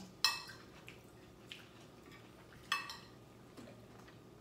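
Tableware clinking during a meal: a metal utensil or glass striking dishes, with two sharp clinks that ring briefly, about two and a half seconds apart, and a few lighter taps between them.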